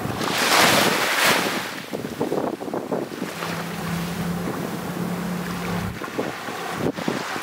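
Small waves washing onto a sandy shore, with wind buffeting the microphone and a louder surge of wash about half a second in. A low steady hum joins for a couple of seconds in the middle.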